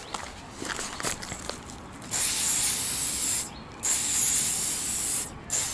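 Paint spraying in hissing bursts: a few light clicks, then a long hiss about two seconds in, a brief pause, a second long hiss, and a short spurt near the end.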